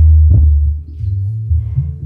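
Bass-heavy music played loud through two 12-inch speakers in a box, fed through a subwoofer filter (low-pass) module. Deep bass notes dominate and change every half second or so, with only faint higher sounds above them.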